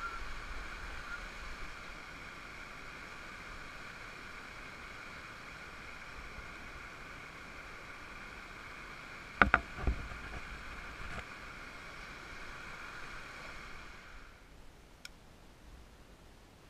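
Steady rushing of shallow river water flowing over rocks, with two or three sharp knocks about nine and a half seconds in. The rushing cuts off near the end, leaving it much quieter.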